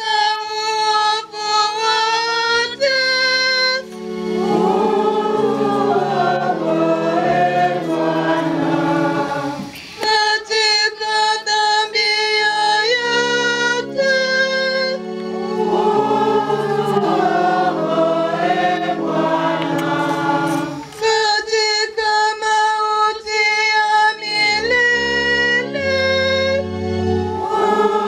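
A Catholic litany sung by the sisters and congregation, with invocations and choral responses alternating every few seconds over steady accompanying chords.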